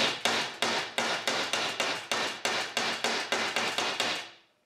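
Brass hammer tapping rapidly on a steel seal driver, about five light strikes a second, pressing a crankshaft oil seal into a chainsaw's metal crankcase half. The tapping stops near the end as the driver reaches its preset depth.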